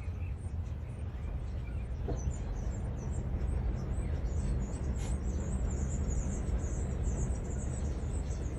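Birds chirping steadily over a low, steady outdoor rumble.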